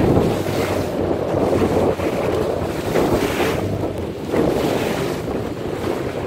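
Wind buffeting the microphone in gusts over a rough, choppy sea, with waves washing around a small aluminium boat and a faint low hum underneath.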